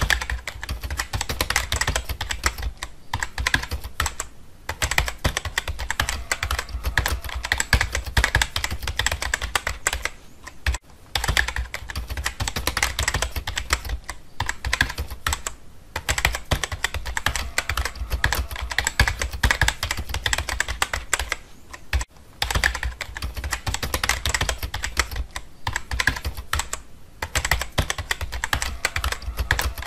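Rapid typing on a keyboard: a steady stream of key clicks broken by a few short pauses.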